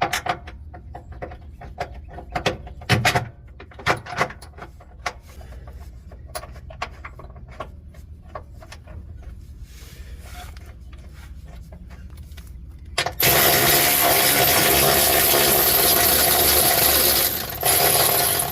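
Scattered metallic clicks and clinks of tools and hardware, then about thirteen seconds in a power tool runs steadily for about four seconds, driving in the subframe bolt, with a second short run near the end.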